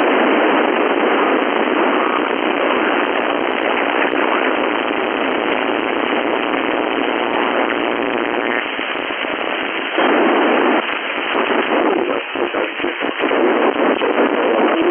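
Static from an FM radio receiver tuned to the 11-meter band, with no transmission on the channel: a steady, rough hiss that jumps louder about ten seconds in, then flutters up and down for a few seconds.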